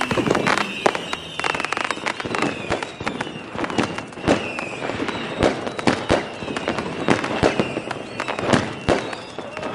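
Fireworks going off: a rapid, irregular string of bangs and crackles, with short whistles falling in pitch.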